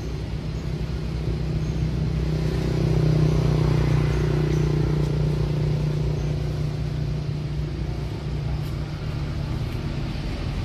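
A motor engine running steadily as a low hum, growing louder about two to three seconds in and then easing off again.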